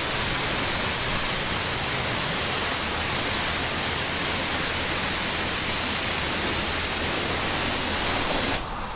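Self-serve car wash pressure wand spraying a high-pressure jet of water onto a car's bodywork: a steady, even hiss that cuts off near the end.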